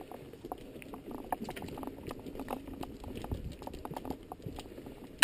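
Mountain bike rolling down a loose gravel singletrack: tyres crunching over stones and the bike rattling, with many small clicks and knocks. A sharp, loud clack comes right at the end.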